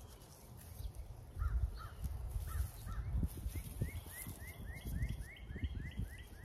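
A bird calling: a few short paired chirps, then a quick run of short rising notes, about three or four a second. Low rumbling and bumps sit under it throughout.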